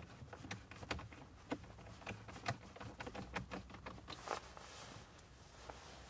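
Faint, irregular clicks and taps of plastic and metal as hands fit an aftermarket 9-inch Android head unit into a car's dashboard and fasten its side bolts, with a brief rustle about four seconds in.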